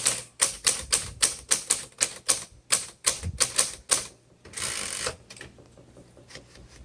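Smith Corona Coronomatic Super 12 typewriter being typed on fast, about four key strikes a second for roughly four seconds, then a short rasping sweep and a few faint clicks.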